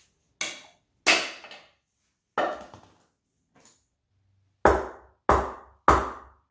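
Small sledgehammer blows driving a new driver-side axle seal into a YS1 transmission case until it sits flush. A few scattered metal knocks and clatters come first, then from about two-thirds of the way in a steady run of hard blows, about one every 0.6 seconds.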